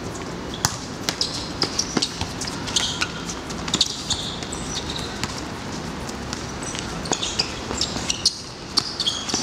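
Football being played on an outdoor hard court: a scatter of sharp kicks and thuds of the ball, with short high squeaks, over a steady background noise.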